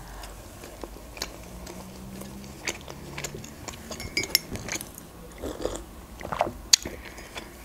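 Close-miked chewing with small wet mouth clicks scattered throughout, then sips from a mug in the last couple of seconds.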